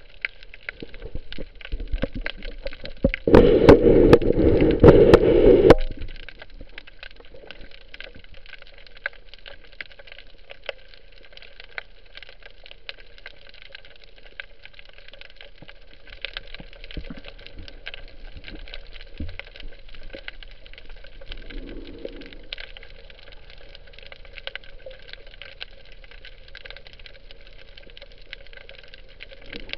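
Underwater sound over a rocky reef: a steady crackle of many fine clicks, typical of snapping shrimp. A loud rushing noise breaks in about three seconds in and lasts over two seconds.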